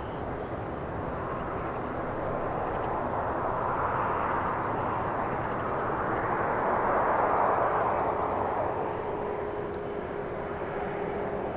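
Jet airliner passing close by, its engine noise swelling to a peak about seven seconds in and then fading, with a steady hum showing near the end.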